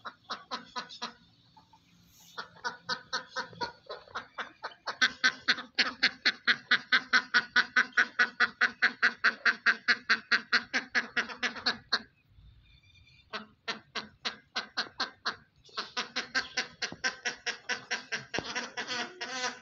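Poultry calling in long, evenly spaced runs of harsh calls, about five a second, loudest in the middle stretch; the calls pause briefly about twelve seconds in, then start again.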